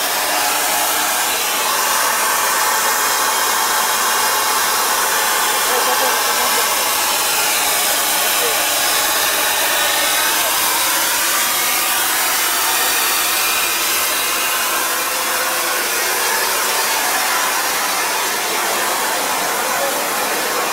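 Steady hiss of oxygen gas rushing through a liquid-oxygen tank and its frosted vaporizer pipework, even and unbroken, with little low rumble.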